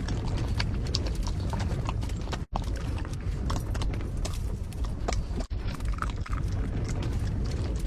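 A pet eating from a bowl: quick, irregular wet clicks of chewing and lapping, over a steady low rumble of strong wind.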